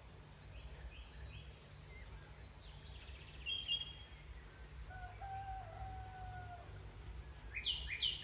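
Small birds chirping in short high notes, loudest near the end, and a rooster crowing once, a single long call about halfway through, over a steady low rumble.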